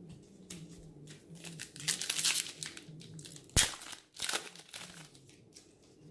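Foil wrapper of a trading card pack crinkling and being torn open, with one sharp snap about three and a half seconds in.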